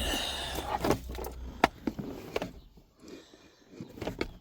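Handling noise from a plastic gear-shifter trim cover being turned over and checked: rustling, then a few sharp plastic clicks, the loudest about one and a half seconds in.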